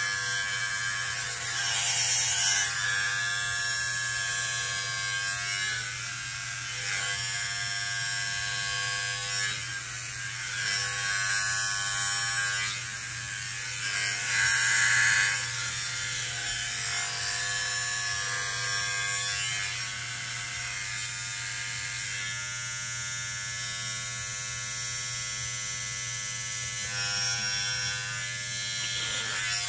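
Cordless electric hair clippers running with a steady buzz while cutting very short hair close to the scalp, growing louder and hissier for a moment about two seconds in and again around fourteen seconds in.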